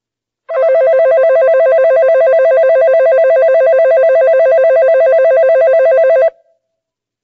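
Electric platform departure bell ringing rapidly and continuously, starting about half a second in and cutting off abruptly after about six seconds. It is the signal that the train's doors are about to close.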